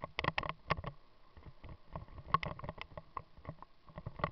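Mountain bike rattling and knocking as it rides down a rough dirt-and-gravel track: sharp, irregular jolts, several a second, from the bike and camera mount bouncing over the stones.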